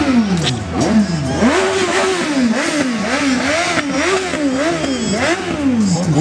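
A vehicle engine revved up and down over and over, its pitch rising and falling in quick, even swells nearly two a second.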